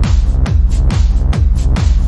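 Electronic techno music with a steady kick drum about twice a second and hi-hat strikes between the beats.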